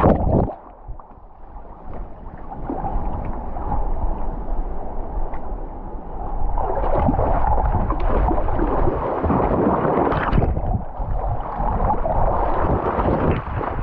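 Creek water splashing and gurgling close around a dog wading through a shallow rocky stream. The sound goes muffled and drops for a second or two near the start while it is under the surface, then the splashing returns steadily, with a deep rumble throughout.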